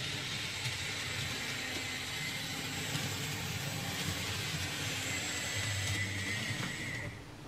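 Hobbytrain Duwag N-scale model tram running on Kato Unitrack: a steady small electric-motor whine with a thin high tone and the hiss of wheels on the track, fading out near the end.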